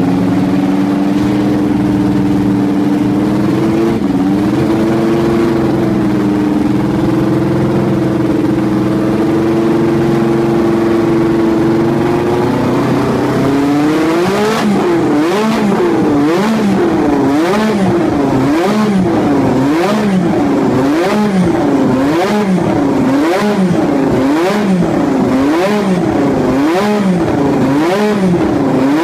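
The Lotus 97T Formula 1 car's turbocharged 1.5-litre Renault V6 holds a steady raised idle for about thirteen seconds. It is then revved up and down in quick, regular throttle blips, about one a second.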